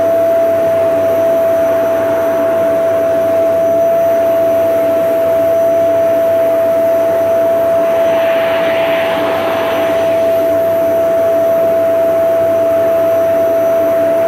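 Vacuum cleaner motor running steadily: a loud, constant high whine over a rushing hiss of air. About eight seconds in, the hiss briefly grows brighter for a couple of seconds before settling back.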